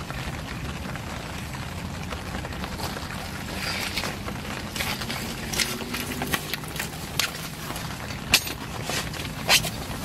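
Light rain pattering, with scattered sharp taps of drops landing close by, the two loudest near the end, over a steady low rumble.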